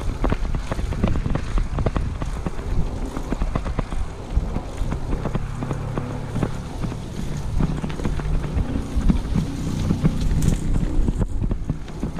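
Wind buffeting the microphone and a steady rumble from a tandem bicycle rolling along a concrete sidewalk, with frequent sharp rattling clicks from the bike.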